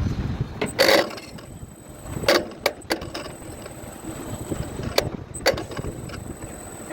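Tower crane trolley motor brake chattering: about five irregular, sharp clacks over a steady low hum. This is an abnormal, harsh brake noise that the electrician traces to a loose wire (no. 6L4) at the brake coil, which leaves the coil without proper voltage.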